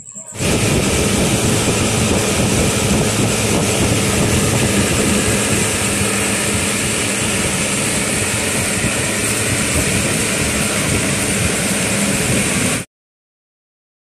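Homemade brushless table fan switched on and running at speed: a loud, steady rush of air with a low hum. It cuts off suddenly near the end.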